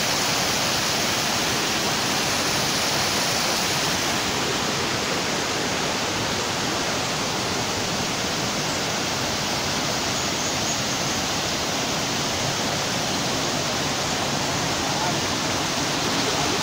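A mountain stream rushing over rocks and small cascades: a steady, unbroken rush of water.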